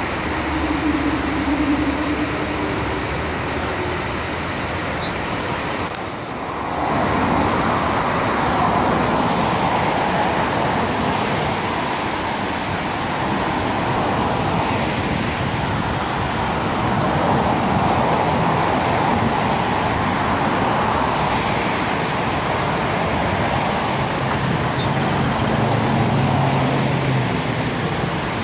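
Steady rush of river water spilling over a low dam's weir, mixed with the hum of road traffic passing.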